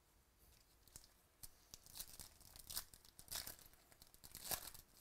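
Foil wrapper of a 2018 Bowman Baseball card pack being torn open by hand: a run of faint crinkling tears, loudest near the end.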